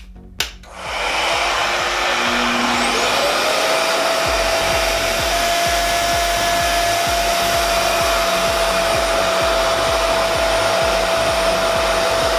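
Revair reverse-air hair dryer switching on with a click, then running with a steady loud rush of air. About three seconds in, its motor whine rises in pitch and then holds, as the suction is turned up to a high setting.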